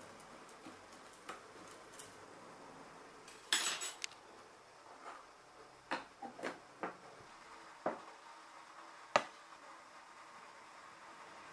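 A spoon scraping and clinking in a plastic cup of emulsifying wax pellets, a short rattling scrape, then several separate sharp clicks and knocks as the containers and a plastic lid are handled.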